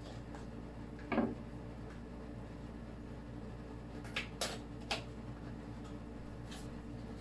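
Small cardboard box being handled and opened: a brief scrape about a second in, then a few short clicks and rustles of the card around four to five seconds, over a steady low hum.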